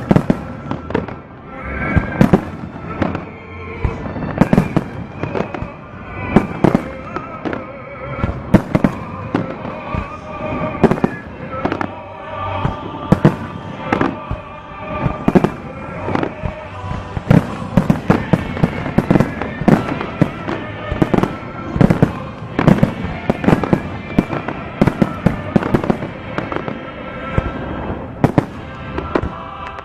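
Aerial fireworks shells bursting one after another in an irregular, rapid string of sharp bangs, often several a second.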